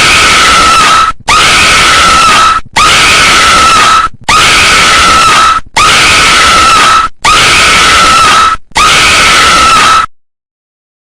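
A possessed girl's horror scream sound effect, played seven times in a row: each cry lasts about a second and a half at one held, shrill pitch, with short gaps between. It stops about a second before the end.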